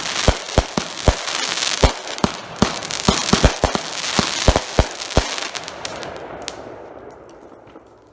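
Cutting Edge Fireworks' Black Eye, a 36-shot 500-gram firework cake, firing a rapid run of sharp shots and bursts over dense crackling. The shots stop about five seconds in, and the crackle dies away over the last couple of seconds.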